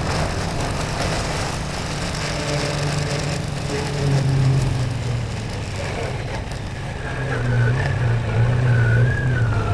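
Motorcycle engine running under way, its pitch rising and falling a little as the throttle changes, with wind and road noise over it.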